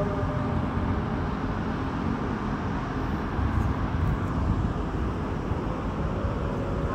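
Steady low rumble of distant city traffic, a noise with no distinct tones.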